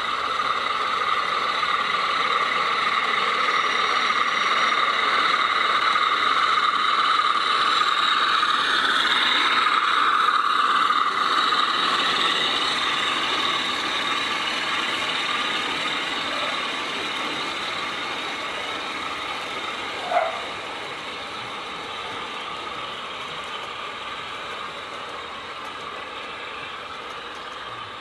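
O gauge model diesel locomotive running past with a train of steel coil wagons: a steady mechanical drone with a whine that grows louder, peaks about a third of the way in, then fades as the train moves away. A single sharp click about two-thirds of the way in.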